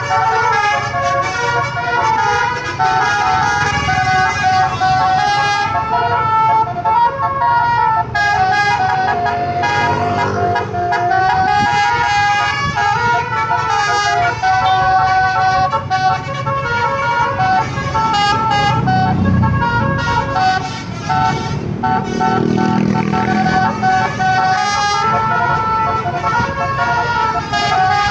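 Basuri horn, the multi-tone musical horn on a light-decorated truck, playing a running tune of stepped notes over engine rumble. The rumble swells for a few seconds around twenty seconds in.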